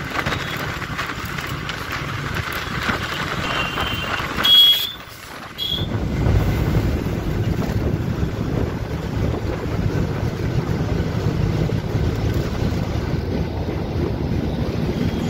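Moving bus heard from inside: steady engine and road rumble. About four and a half seconds in comes a brief loud high-pitched sound; after a short dip the low rumble comes back heavier.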